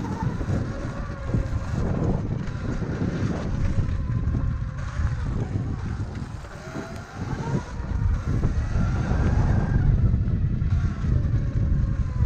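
Wind rumbling on the microphone while riding a Sur-Ron electric dirt bike, with the motor's faint whine rising and falling in pitch as the bike speeds up and slows.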